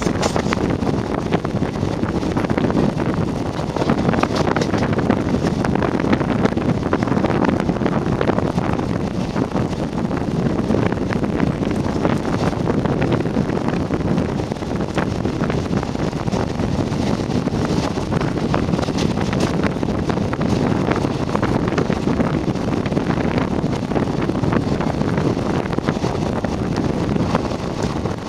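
Wind rushing over the microphone held out of a moving passenger coach's open door, over the steady rumble of the train's wheels running on the track.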